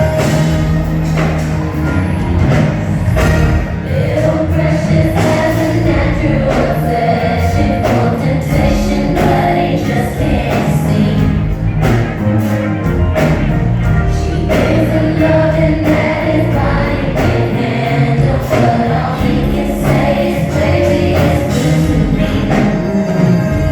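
Live R&B concert performance: several women's voices singing over a band backing with a steady bass line and drums.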